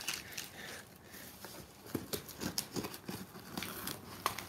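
Paper and cardboard rustling and crinkling as hands pull open a taped cardboard box and dig through its paper packing, with scattered small taps and clicks.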